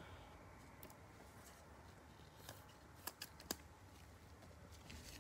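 Near silence with a few faint clicks and light plastic rustles, one about two and a half seconds in and a quick cluster a little after three seconds. This is a trading card being handled and slid into a clear plastic sleeve by gloved hands.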